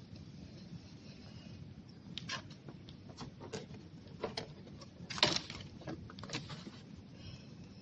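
Scattered light clicks and knocks at irregular intervals, with one louder knock about five seconds in.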